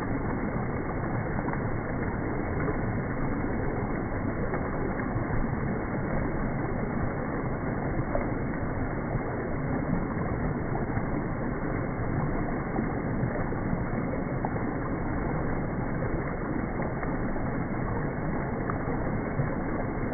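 Small woodland creek rushing steadily as it spills in little cascades over fallen logs and leaf-packed debris.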